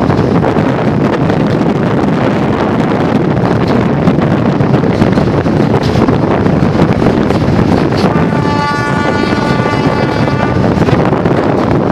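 Train running at speed, heard through an open carriage window with wind buffeting the microphone: a loud, steady rumble. About eight seconds in, a steady horn-like tone sounds for about two and a half seconds over it.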